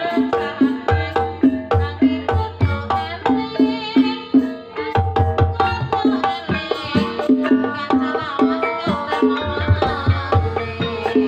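Live Javanese gamelan music for jaranan dance: kendang hand drums beating a fast pattern with deep thuds, over quick repeated notes from metallophones and gongs.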